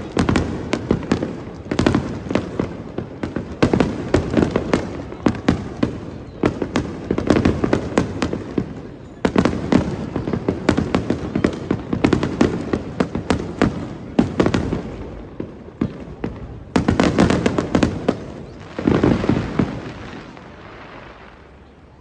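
Fireworks display: rapid salvos of aerial shells bursting and crackling in waves with short lulls, dying away near the end.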